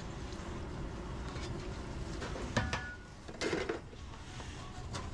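Steady commercial-kitchen hum, with a sharp metallic clink that rings briefly about two and a half seconds in and a short clatter of dishware just after, as a rice bowl is ladled and set down on the prep counter.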